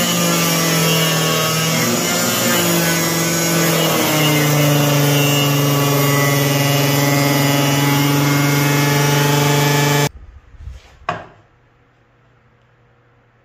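Homemade mini table saw running with no load: its motor and spinning blade give a loud, steady whine whose pitch steps slightly lower a couple of times. About ten seconds in the sound stops abruptly, followed by a couple of light knocks.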